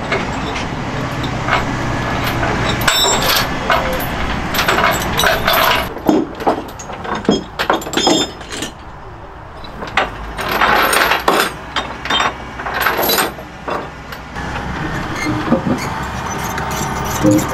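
Kobelco SK380SR excavator's diesel engine running steadily, with many sharp metallic clanks and rattles over it.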